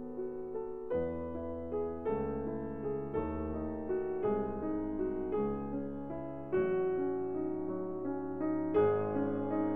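Background piano music: a slow, gentle piece with notes changing about once a second.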